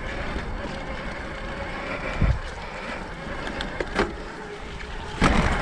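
Electric mountain bike climbing a grassy dirt track: steady tyre and riding noise with a faint steady whine from the pedal-assist drive unit. A few knocks from bumps, about two and four seconds in, and a louder one near the end.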